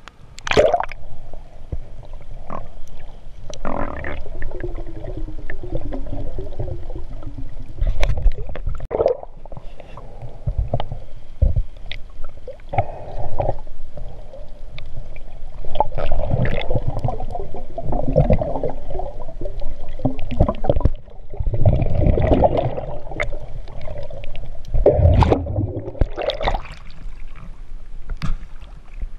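Muffled underwater gurgling and sloshing of water around a submerged camera as it is moved under and through the surface, in irregular surges, with scattered knocks.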